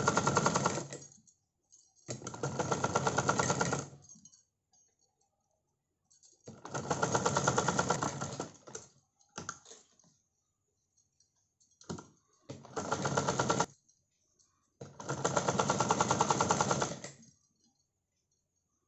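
Usha sewing machine stitching in short runs of rapid, even clicking, stopping and starting about six times as the fabric is turned along a curved seam.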